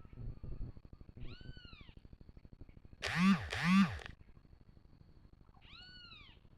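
Animal calls, each rising then falling in pitch. A high call comes about a second in, then two loud, lower calls in quick succession, and another high call near the end.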